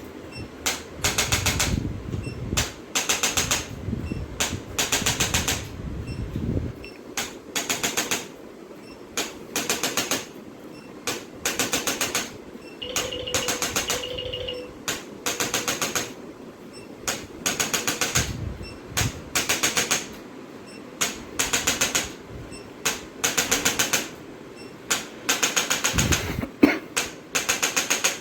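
Electric chiropractic adjusting instrument firing short bursts of rapid taps, a new burst about every second.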